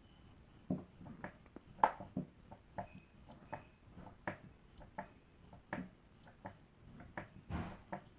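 Faint, tinny leakage of music from a pair of EarFun Free 2 earbuds playing at max volume, heard only as a string of soft ticks and taps in a rough beat, a little under two a second.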